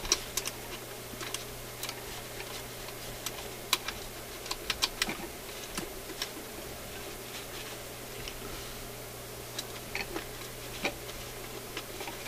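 Small irregular clicks and taps of a tool and fingers on the metal spindle parts of a BSR record changer while it is wiped down with alcohol, with a quick run of clicks about five seconds in, over a steady low hum.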